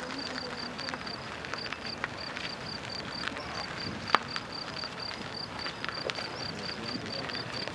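A cricket chirping steadily, a short high chirp about four times a second, over scattered light clicks and crunches of wheels and feet on a gritty concrete path, with one sharp click about four seconds in.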